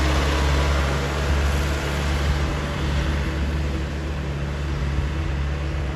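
Diesel engine of a light truck loaded with sugarcane, working hard as it climbs an uphill bend. It is a steady low drone that grows slightly quieter as the truck pulls away.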